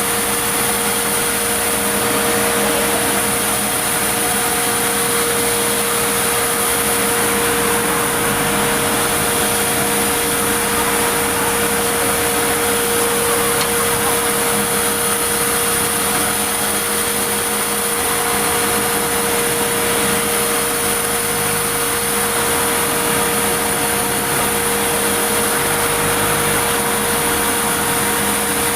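Sawmill machinery running steadily, a dense mechanical noise with a constant whine that holds the same pitch throughout.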